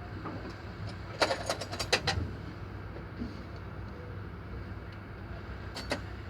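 Metal clinks and clanks of tools and parts being handled, a cluster of them about a second in and one more near the end, over a steady low machine drone.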